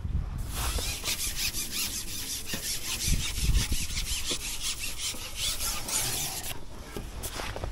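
Carbon match-fishing pole being shipped back, sliding with a long rasping rub that starts about half a second in and stops about six and a half seconds in.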